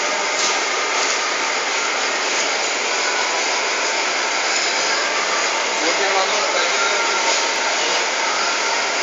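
Match splint chopping machine running, a loud steady mechanical noise with no distinct strokes standing out.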